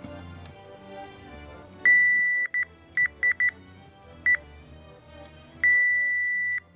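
Digital multimeter in continuity mode beeping with a high, steady tone: one long beep, a run of short chirps as the probe makes and breaks contact, then a second long beep near the end. The beep signals a connection, here showing that the probed USB pad is ground. Quiet background music runs underneath.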